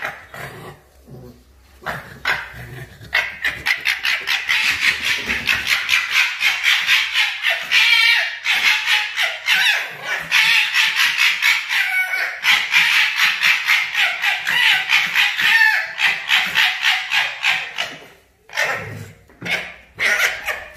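Fox gekkering: a rapid chattering run of many short calls a second, part of an aggressive standoff between two foxes. It starts about three seconds in and breaks off near the end, followed by a few shorter calls.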